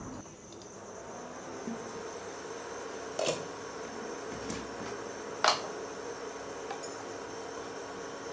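Induction cooktop running with a steady hum and a faint high whine, and two sharp clinks from the pot's glass lid as it is taken off, about three and five and a half seconds in.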